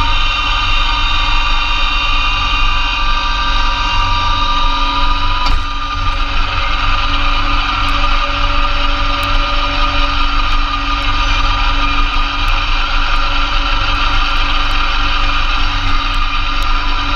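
2004 Massey Ferguson GC2300 compact tractor's diesel engine running steadily under load, driving a PTO-powered Blizzard B48 snowblower as it throws heavy wet snow. There is a short knock with a brief dip in the sound about five and a half seconds in.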